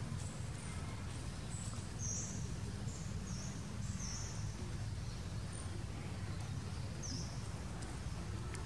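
Steady low outdoor rumble with scattered short, high-pitched bird chirps, several in quick succession a couple of seconds in and another near the end.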